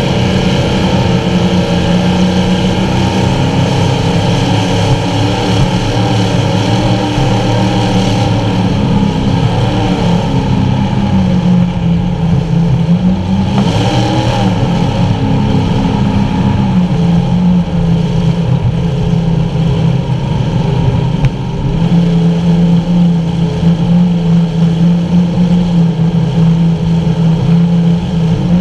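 Skater 368 Supercat offshore racing catamaran's engines running hard at racing speed, heard from inside the enclosed cockpit, with a constant rush of wind and water over the hull. The engine note wavers and drops a little around the middle, then holds steady.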